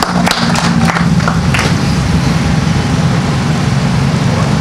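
A few last claps of applause in the first second, then a steady low engine hum, as of a vehicle idling.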